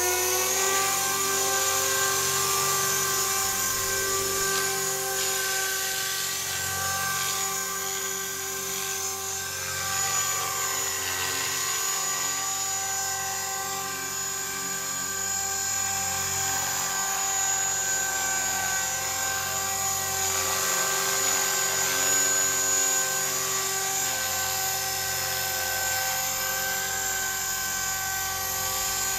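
Align T-Rex 450 electric RC helicopter's brushless motor and rotor spinning up, settling to a steady high whine about half a second in and holding close to one pitch.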